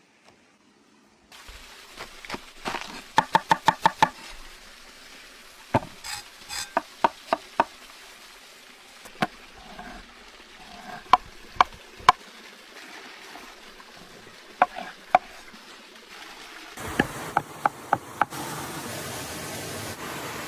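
Outdoor cooking preparation: sharp knocks and clicks of utensils and food being handled, with a fast run of about eight knocks in one second a few seconds in, then scattered single knocks. Near the end a steady rushing noise joins them.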